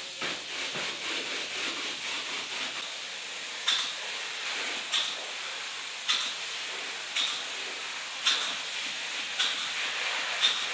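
Spray foam gun hissing steadily as it sprays two-part closed-cell polyurethane foam insulation onto a wall, with a short louder puff about once a second.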